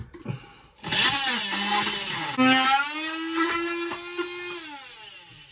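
A small power tool's motor runs with a steady hum. Its pitch shifts and then holds for about two seconds before the sound fades out near the end.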